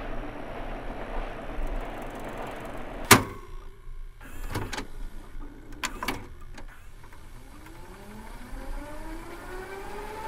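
A sharp click about three seconds in, then a few lighter clicks, then a whine that rises in pitch over about three seconds and levels off into a steady tone, like a motor spinning up.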